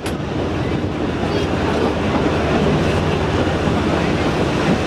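Narrow-gauge Kalka–Shimla toy train running along the track, heard from beside an open carriage window: a steady rumble and rattle of wheels and carriage. There is a brief sharp click at the very start.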